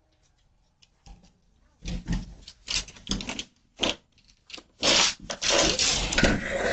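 Alligator scraping and rubbing against a front door as it climbs, picked up by a doorbell camera's microphone: irregular scratchy bursts from about two seconds in, running almost without a break in the second half.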